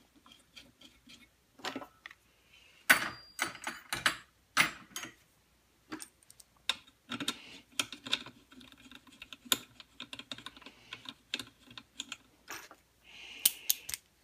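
Irregular small metal clicks and clinks of a screw, washers and a steel felling-dog plate being handled and fitted onto a chainsaw body, with a few louder clatters about three seconds in and near the end.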